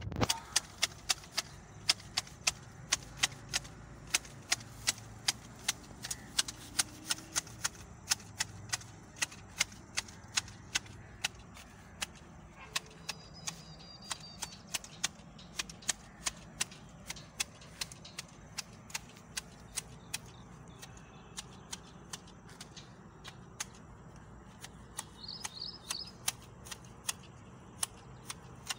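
Hand hedge shears snipping through a creeper hedge: a run of sharp clicks, about two to three a second, thinning out and growing irregular in the second half.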